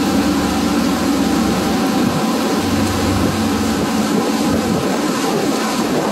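Boat engine running steadily, a constant drone.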